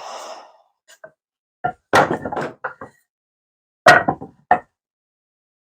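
Cut lengths of 2x4 lumber knocking against each other and the bench as they are handled and stacked: a few sharp wooden knocks, in two quick clusters.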